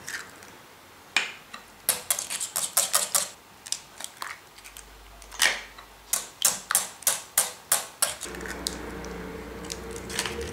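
Wire whisk ticking rapidly against the side of a ceramic bowl as eggs are beaten into a thick pumpkin cream, in two spells of quick clicks, with a few single sharp clicks such as an eggshell cracking.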